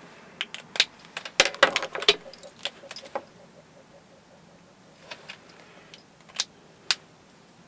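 Plastic Copic art markers clicking and clattering as they are picked up, uncapped and set down on a wooden desk: a quick cluster of sharp clicks in the first three seconds, then a few single clicks later.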